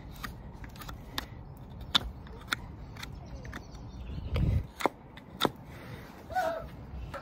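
Hoof knife paring the sole of a horse's hind hoof: a run of sharp, crisp cuts at irregular intervals, as the sole is pared down to open a hoof abscess. A brief low thump comes about four and a half seconds in.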